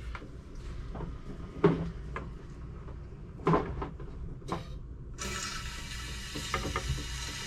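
A few clunks of handling, then about five seconds in a steady hissing rush of water starts suddenly: a portable electric drain jetter spraying water as it begins jetting out a sink drain line.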